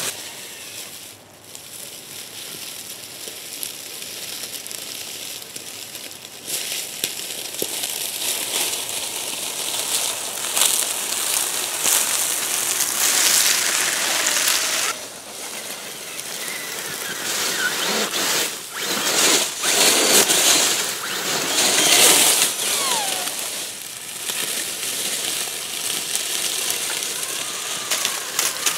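Tyres of a Jeep-bodied RC crawler crunching and crackling through dry leaf litter as it drives, coming in uneven bursts that are loudest in the second half.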